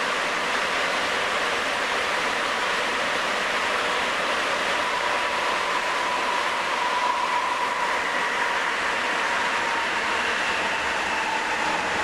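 Sapporo subway Type 9000 rubber-tyred train with Hitachi IGBT-VVVF control, running as it slows on the final approach to a station. There is a steady rolling noise under a thin inverter whine, and the whine's pitch dips slightly near the end.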